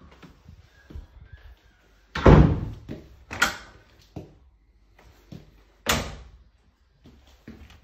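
Doors being shut in a kitchen: a series of knocks with three louder thumps, the loudest about two seconds in, the others about three and a half and six seconds in.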